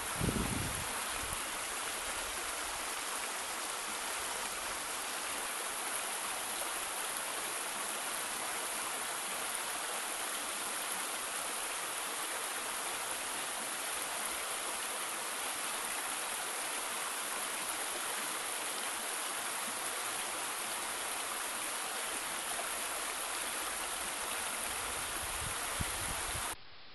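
Waterfall's water rushing steadily in an even, unbroken hiss, with a brief low thump at the very start; it cuts off abruptly near the end.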